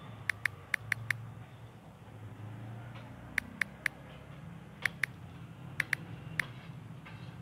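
Smartphone on-screen keyboard key clicks: about a dozen short, crisp ticks in quick runs of two to five, one per key tapped, over a low steady hum.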